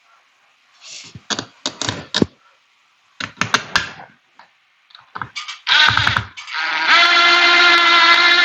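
Sharp clicks and knocks as an electrical outlet is handled against its wall box. Then a power screwdriver runs at a steady pitch for about two and a half seconds, driving the outlet's mounting screws into the gang box.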